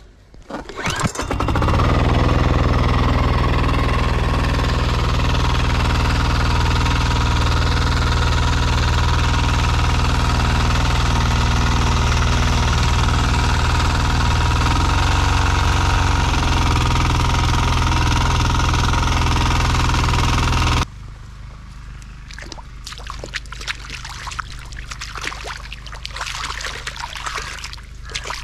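Mini rotavator engine started about a second in, then running steadily under load as it tills, its note shifting slightly partway through. Near the end it cuts off abruptly to quieter sloshing in shallow muddy water.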